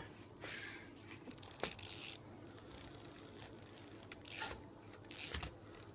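A pug chewing and gnawing on a stuffed plush toy. Several short, scratchy bursts of fabric rubbing and tugging come through.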